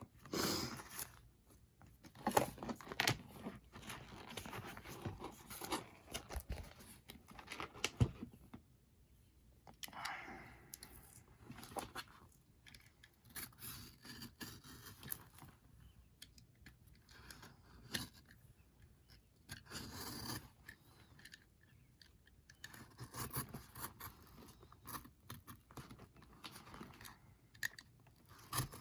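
Irregular rustling, scraping and crinkling from hands working on an old Bible: the cover and pages being handled and pulled, with scattered small clicks and taps.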